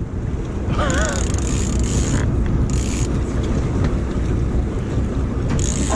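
The charter boat's engine running steadily under the deck, with wind buffeting the microphone. Short high-pitched hisses come and go about three times over the rumble.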